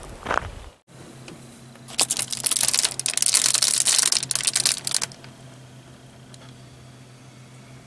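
Footsteps on gravel stop in the first second. Then reflective bubble-foil window insulation crinkles loudly for about three seconds as it is pulled back from a window, over a low steady hum.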